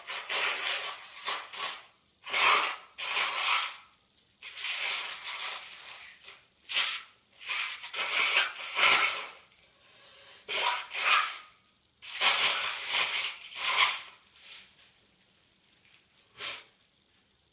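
A woman with a stuffy, runny nose sneezing and sniffling over and over, in a string of short noisy bursts with brief pauses between them.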